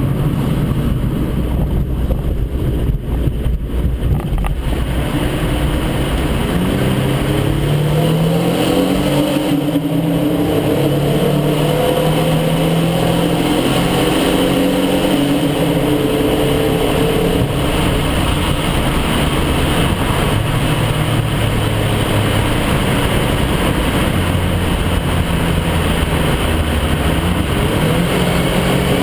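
Dodge Stratus engine and exhaust, fitted with a Dynomax Turbo II style muffler, under acceleration, heard with the car in a tunnel. The car runs steadily for a few seconds, then pulls up through the gears with its pitch rising in steps, holds a steady pitch for a long stretch, and starts climbing again near the end.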